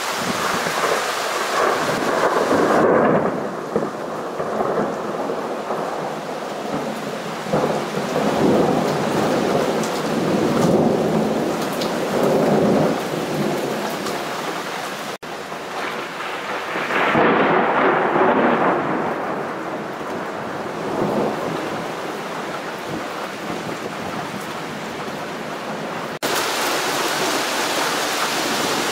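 Rolling thunder rumbling and fading several times over a steady hiss of rain. The sound changes abruptly twice, at edit cuts.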